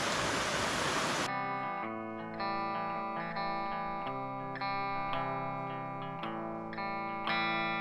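Rushing river water for about the first second, then an abrupt switch to background music: a guitar playing a slow line of held notes.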